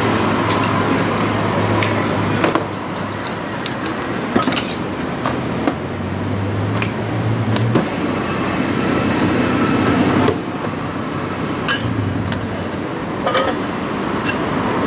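Metal spatula and utensils clinking and tapping against a flat pancake griddle now and then, about half a dozen sharp clinks, over a steady din of street traffic.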